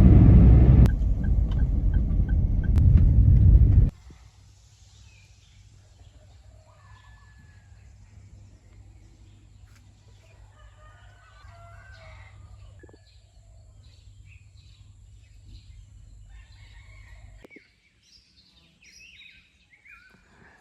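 A loud low rumble for about the first four seconds, which stops abruptly. Then birds chirping and calling at scattered moments over a faint low hum and a thin, steady high tone, with a few sliding chirps near the end.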